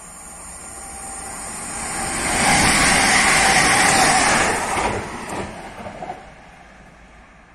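Newag Impuls electric multiple unit passing at speed: its wheel and rail noise builds to a loud peak a little over two seconds in, holds for about two seconds as the train goes by, then fades as it runs away.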